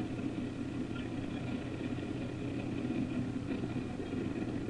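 Fishing boat's engine running steadily with a low, even rumble.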